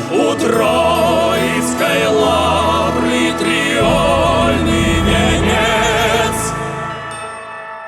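Voices singing with strong vibrato over sustained accompaniment, ending on a held final chord that fades away near the end.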